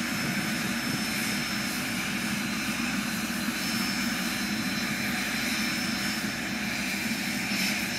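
Propeller airplane engine running steadily, a constant drone with a thin high whine above it.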